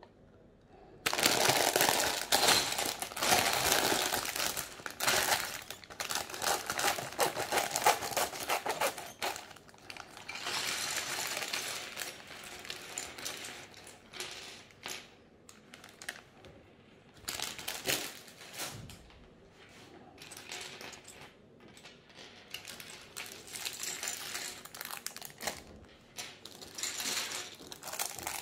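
LEGO pieces clattering onto a wooden tabletop as a plastic bag of parts is emptied. A dense clatter starts about a second in and lasts several seconds, with the bag crinkling; after that come scattered clicks as pieces are spread and picked through.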